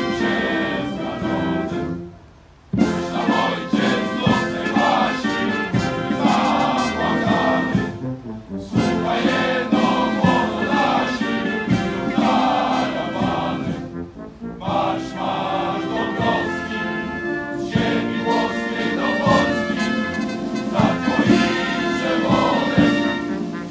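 Choral music with brass and orchestral accompaniment, sung in long held phrases, with a short break about two seconds in.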